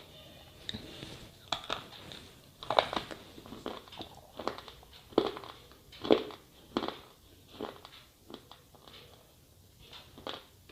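Slate pencil being bitten and chewed: a string of sharp, irregular crunches, the loudest about three and six seconds in.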